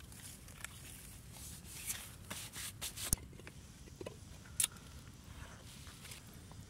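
Handling of a clay cooking pot on a wood fire: light scrapes and rubbing as it is covered with its clay lid, with sharp clicks about three seconds in and about four and a half seconds in.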